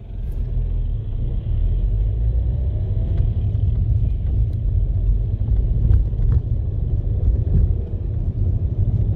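Car engine and road rumble heard from inside the car as it pulls away and drives on, a steady low rumble that swells during the first second.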